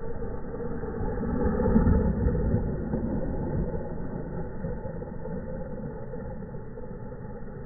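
Wind rumbling on the microphone while a small brushed-motor 1:12 scale RC off-road truck drives past, loudest about two seconds in and then fading.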